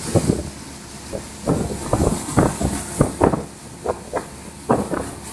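Speed boat running fast over the water: a steady rush of engine, wind and spray, with irregular slaps of the hull against the waves about twice a second.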